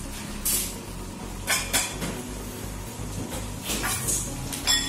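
A handful of short clatters and knocks from kitchen things being handled on a worktop, the loudest about half a second in and just before the end; the food processor is not running.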